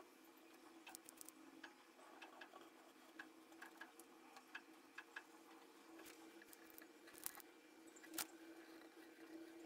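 Near silence: faint scattered clicks and taps of hands handling cotton cord and a hot glue gun on a wooden round, over a faint steady hum, with two slightly sharper clicks near the end.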